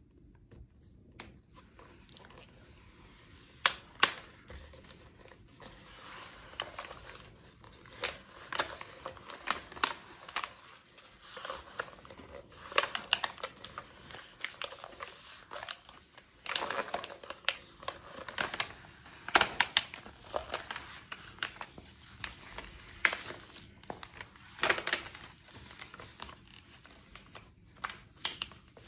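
Heat transfer vinyl sheet being handled and weeded: its plastic film is unrolled and the excess vinyl peeled off the clear carrier sheet, with irregular crinkling and crackling and sharp snaps. The crackling grows denser and louder about halfway through.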